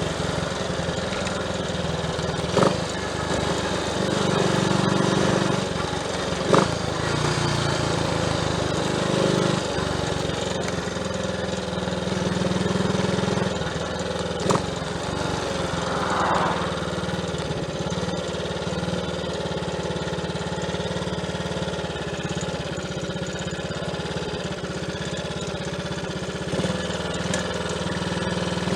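Triumph Tiger Cub's single-cylinder engine idling steadily, with a few sharp knocks.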